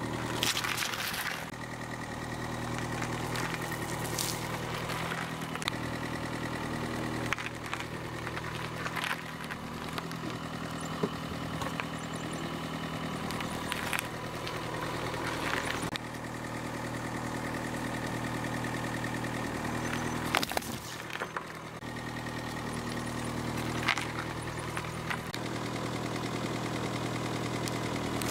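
Car engine idling steadily while its tyre rolls slowly over and crushes a cabbage, soft bread buns and a packet of biscuits, with a series of sudden crunches and squashes.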